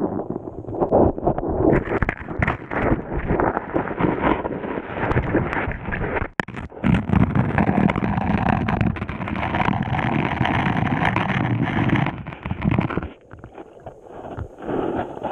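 River water heard underwater through a GoPro's waterproof housing lying on the riverbed: a muffled rushing of current full of knocks and scrapes as the housing shifts on the sandy bottom, growing quieter about thirteen seconds in.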